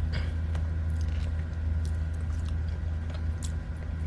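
A person chewing a mouthful of pasta close to the microphone, with small wet smacks and clicks, over a steady low hum.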